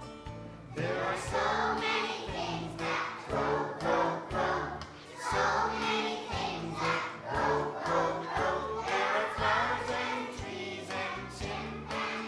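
A group of young children singing together over an instrumental accompaniment with a steady bass beat; the singing comes in about a second in.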